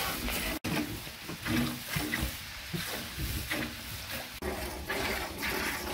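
Farm animals making short, low grunting calls, repeated several times over a noisy barn background.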